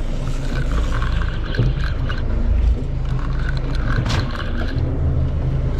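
Fishing reel being cranked in against the weight of a hooked fish. The gears whir in repeated spells as the handle turns, over a steady low rumble, with a single sharp knock about four seconds in.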